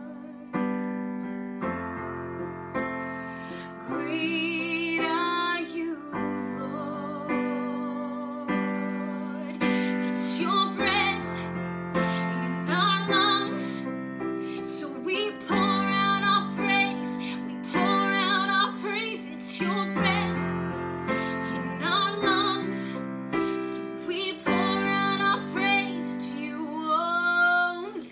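A woman singing a slow worship song with vibrato on held notes, over sustained piano chords.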